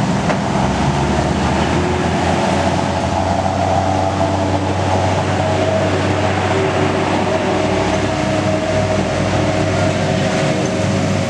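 Kobelco SK200 hydraulic excavator's diesel engine running steadily under load, its hydraulics working as it lifts a dump truck out of a ditch on a cable.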